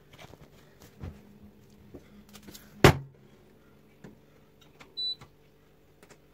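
A front-loading washing machine being loaded and set: soft rustles and clicks of clothes going into the drum, the door shut with a loud knock about three seconds in, then a single short high beep from the control panel as it is set going.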